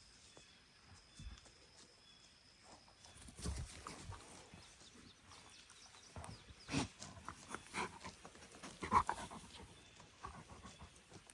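Farm animals moving about at close range: scattered soft knocks and rustles, the loudest a short sound about nine seconds in.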